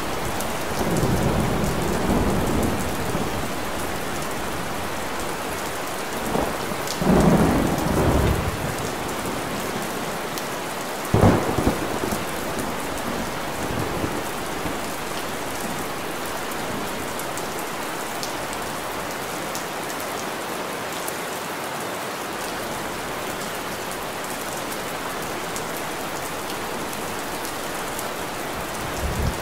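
Steady rain falling, with a few low rumbles in the first eight seconds and one sharp knock about eleven seconds in.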